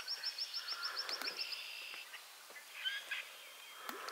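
A small songbird's rapid, high trill of short rising notes, about seven a second, ending about one and a half seconds in, followed by scattered high chirps from other birds in the marsh.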